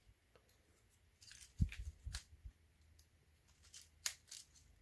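Hard plastic toy parts of a Transformers X-Wing robot clicking and knocking as they are handled: a cluster of clicks with a low knock about a second and a half in, then two sharp clicks near the end.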